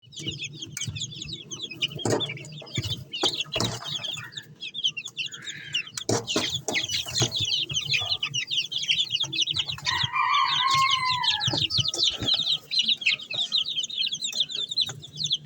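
A flock of chickens with chicks: continuous high peeping from many birds at once, with a louder falling chicken call about ten seconds in and scattered knocks.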